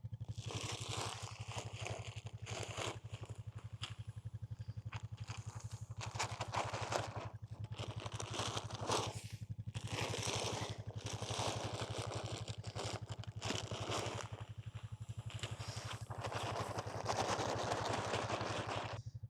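A small engine idling steadily, with irregular rustling and scraping noises of a second or so over it.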